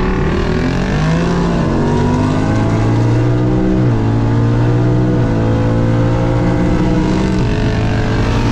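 Twin-turbo Ford Mustang GT's 5.0 V8 at full throttle, heard from inside the cabin, pulling hard through the gears. The engine note climbs steadily, then drops sharply at each of three upshifts, about four, five and seven and a half seconds in.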